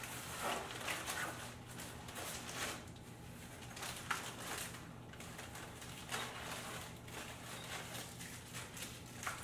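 Irregular plastic rustling and handling noise as a plastic-wrapped aluminium travel tripod is drawn out of its padded travel case, over a faint low steady hum.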